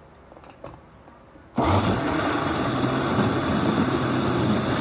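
Countertop blender with a jar full of tomatoes, peppers, onions and mushrooms: a couple of faint clicks, then the motor switches on abruptly about one and a half seconds in and runs loud and steady, puréeing the tomato sauce.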